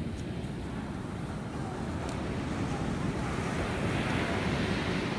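Ocean surf washing onto a beach, with wind rumbling on the microphone; the wash swells louder about three seconds in.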